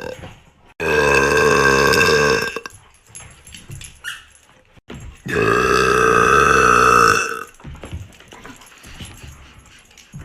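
A woman's two long, deep burps, each about two seconds; the second comes about five seconds in.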